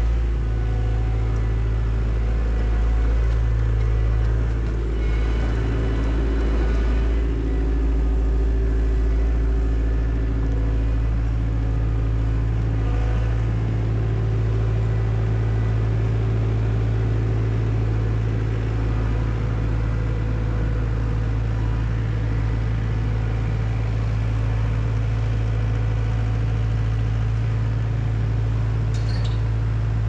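Diesel engine of heavy demolition equipment running steadily at a low, even note, its pitch shifting slightly a few times.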